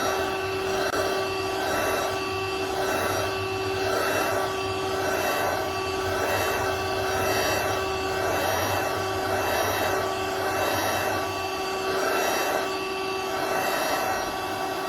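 Small handheld cordless vacuum cleaner running, a steady motor whine that swells and fades about once a second, cut off abruptly at the end.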